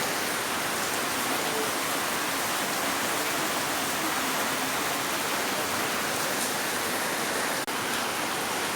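Steady rain falling, an even hiss without a break, with a single short click about three-quarters of a second before the end.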